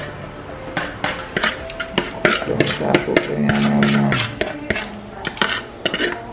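A metal fork scraping and clicking against a plastic mixing bowl and the rim of an aluminium pressure cooker as seasoned oxtail is scraped into the pot: a quick, irregular run of sharp scrapes and taps.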